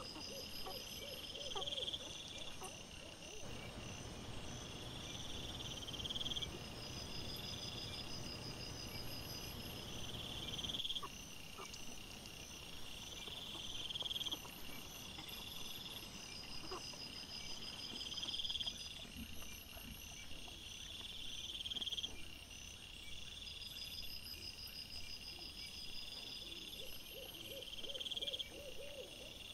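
Night-time insect chorus: a high trill that swells and fades about every two seconds, with fainter, higher chirping above it. A short run of low, pulsing calls comes near the start and again near the end.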